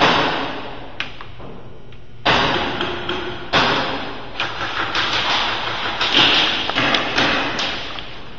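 Airsoft gunfire: a run of sharp shots, each with an echoing tail, at uneven intervals and coming thicker in the second half.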